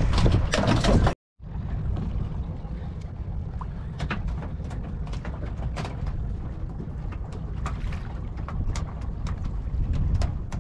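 Small wooden fishing boat at sea: a steady low rumble with scattered light slaps and ticks of water against the hull. It drops out briefly about a second in.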